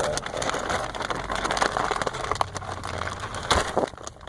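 Package being opened by hand: dense crackling and rustling of the packaging with many small clicks, which eases off shortly before the end.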